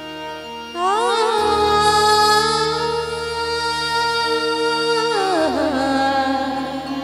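A woman singing a long held note over a sustained harmonium drone. Her voice comes in about a second in with an upward glide, holds the note with a slight waver, then slides down near the end.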